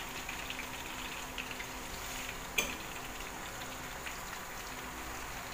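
Hot oil sizzling and crackling steadily in a frying pan, with a faint steady hum underneath and a single sharp click about halfway through.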